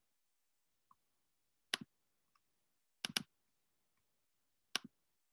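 A few sharp computer clicks with silence between them: a faint one, a single click, a quick double click about three seconds in, and one more near the end, made while opening a video in QuickTime Player on a Mac.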